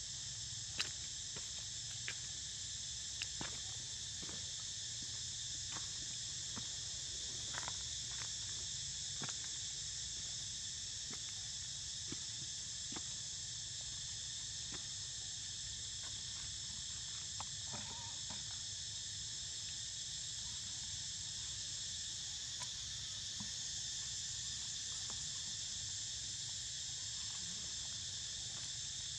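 A steady chorus of insects trilling at a high pitch, several kinds layered together, with a few scattered faint clicks and ticks.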